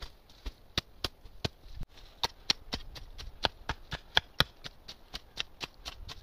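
Dry fallen leaves crackling as a shovel and hoe chop into and turn the pile: a run of sharp crackles, about three or four a second.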